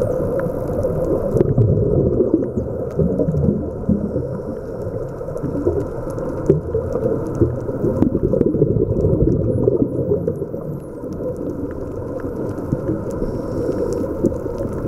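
Underwater sound near a pod of bottlenose dolphins. A steady low rumble of water noise is the loudest part, with scattered clicks and a few faint high whistles gliding up and down about halfway through.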